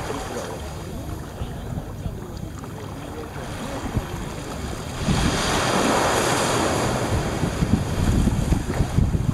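Small waves washing up a sandy beach, with wind buffeting the microphone. A louder wash of surf swells up about halfway through and stays louder to the end.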